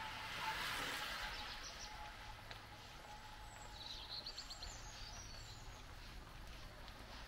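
Outdoor street ambience: small birds chirping in short quick series, the clearest about four seconds in, over a faint steady background, with a brief swell of rushing noise in the first second and a half.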